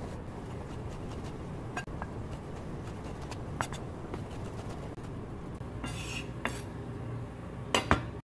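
Chef's knife tapping on a wooden cutting board while dicing tomatoes: sparse sharp taps over a steady low background hum, a short noisier stretch about six seconds in, and a couple of louder knocks just before the sound cuts off suddenly near the end.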